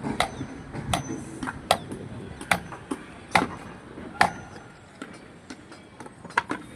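Hammer blows on construction shuttering as a carpenter sets formwork: six sharp strikes at a steady pace, a little under a second apart. After a pause, a few quicker, lighter strikes come near the end.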